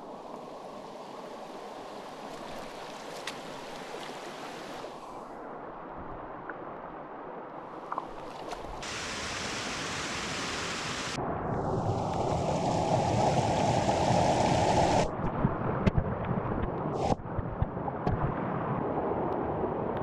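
Creek water rushing over rocks and a small cascade, growing louder about halfway through and loudest for a few seconds after that. A few sharp knocks follow near the end.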